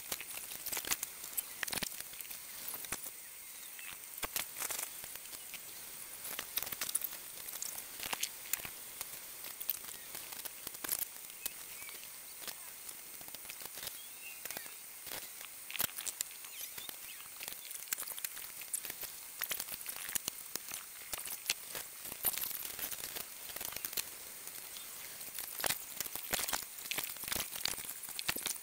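Fast-forwarded kitchen cooking sounds: a dense, irregular run of quick clicks and clatter from utensils, bowls and pans over a steady high hiss.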